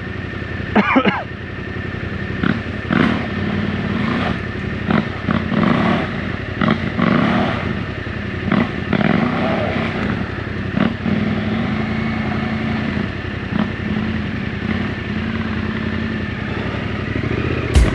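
Adventure motorcycle engine running at a low, fairly steady speed, with many short knocks and clatters over it.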